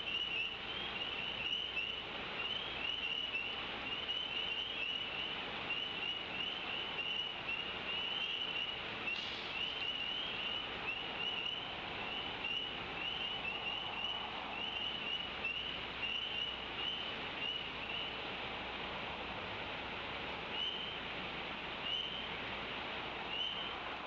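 An adult bald eagle gives a warning wing flap about seven seconds in. Behind it runs a steady chorus of short, high, rising peeps, several a second, that thins to a few single peeps after about eighteen seconds.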